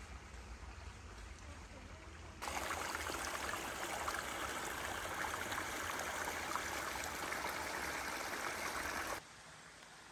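Small woodland stream trickling and splashing over fallen leaves and mossy branches. The water sound starts suddenly a couple of seconds in and cuts off shortly before the end.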